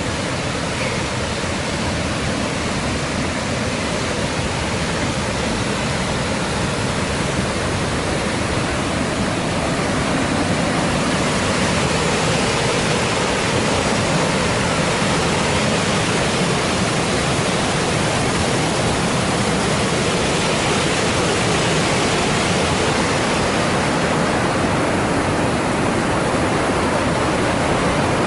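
Whitewater rapids rushing through a narrow rock gorge: a steady, loud rush of water that grows a little louder about ten seconds in.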